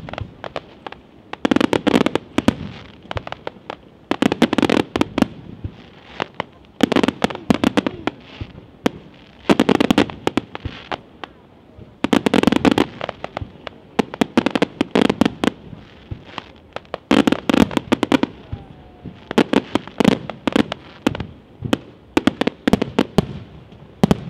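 Fireworks display: fan-shaped volleys of fireworks fired from ground level. Each volley is a quick cluster of sharp bangs and crackles lasting about a second, and the volleys repeat roughly every two and a half seconds.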